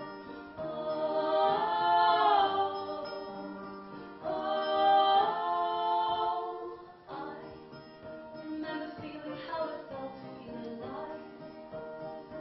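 Live acoustic music: women's voices singing long held notes in harmony for about the first seven seconds, then a quieter stretch of shorter sung and played notes.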